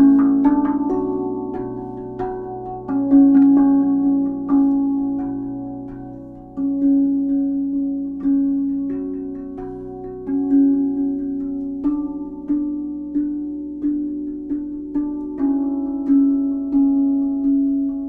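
RAV steel tongue drum played by hand: single notes struck one after another, each ringing on long and overlapping the next. The strokes are slow and spaced at first, then come in a quicker, even run over the last few seconds.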